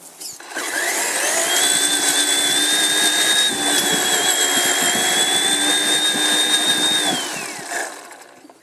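Traxxas Summit RC truck's electric motor and geared drivetrain whining. It rises in pitch as it speeds up about half a second in, holds steady for about six seconds, then falls away near the end as the truck slows.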